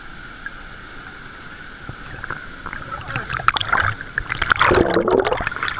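Water splashing and rushing, quiet at first and building to a loud burst of splashing in the second half, as of wading through a waterfall's stream.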